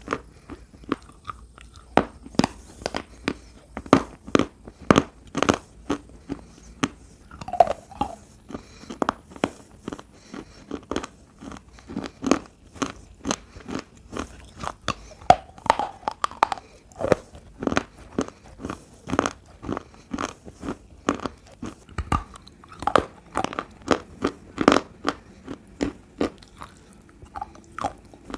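Close-up biting and chewing of wet clay and slate pencil pieces: a rapid series of sharp, crisp crunches, about two or three a second.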